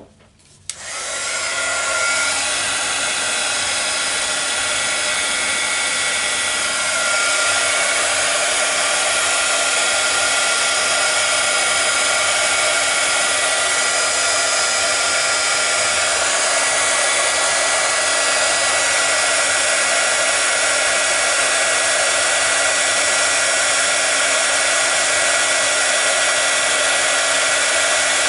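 Handheld craft heat tool (embossing heat gun) switched on just under a second in and blowing steadily onto acrylic paint to make it bubble. Its fan gives a steady whir with a faint whine, a little louder from about seven seconds in.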